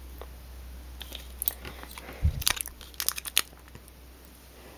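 Plastic packaging crinkling and crackling in scattered short clicks as the wrapping is undone from a Lightning to USB cable, with a brief low thump about two seconds in.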